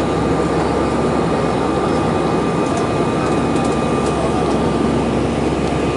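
Steady cabin roar of an Airbus A320-family airliner's jet engines at climb power just after take-off, heard from a window seat beside the engine, with a thin steady whine riding over the rumble.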